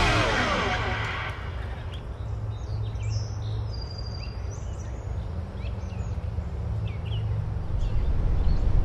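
Birds chirping in short, scattered calls over a steady low outdoor rumble, while music fades out in the first second or so.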